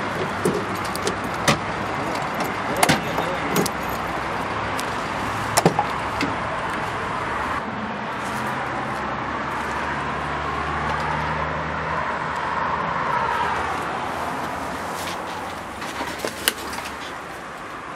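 GAZ Gazelle turbodiesel engine idling steadily, with keys jangling and several sharp clicks and knocks from the driver's door lock and handle as the door is unlocked and opened.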